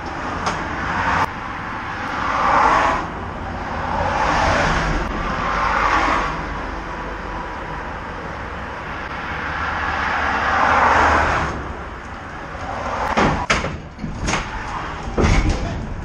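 Highway traffic rushing past in several swells over a steady low engine hum, then a few sharp thumps near the end as the car drives up onto the trailer's ramps.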